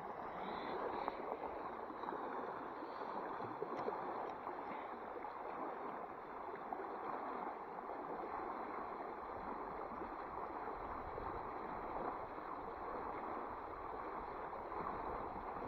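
Creek water rushing steadily over a shallow riffle.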